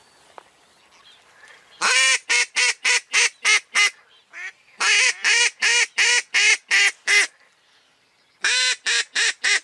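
A live decoy hen duck quacking in three runs of six to nine quacks each, with a single quack between the first two runs. This is the hen calling drakes in to land.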